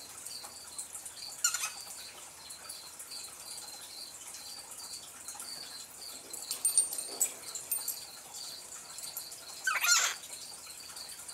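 Pet cockatiel in its cage giving a few short chirps, the strongest near the end, over a faint high-pitched pulsing that repeats about two to three times a second.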